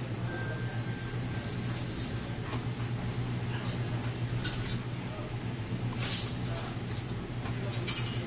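Festo tripod robot working: short air hisses and clicks every second or two, the loudest about six seconds in, over a steady low machine hum.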